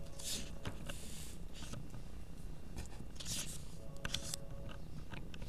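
Graphite pencil sketching on drawing paper: a few short, scratchy strokes, with light ticks of the pencil near the end, over a low room hum.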